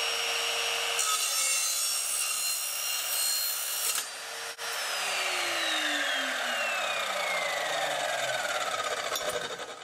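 Evolution Rage4 185 mm multi-material chop saw running, its 20-tooth blade cutting through thin steel stud channel from about a second in until about four seconds in. After a short break the motor is let go and spins down with a steadily falling whine.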